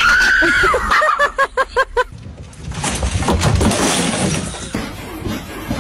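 A dog yelping: one drawn-out high cry that rises and falls, then about six short yelps in quick succession. About three seconds in, a noisy clatter follows.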